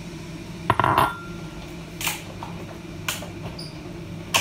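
A few sharp knocks and clatters of kitchen things being handled, the loudest a quick cluster about a second in and single knocks after, over a steady low hum.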